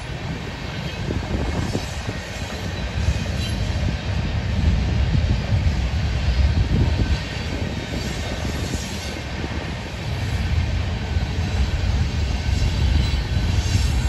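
Freight train of ethanol tank cars rolling past, the wheels on the rails making a steady low noise that swells and eases.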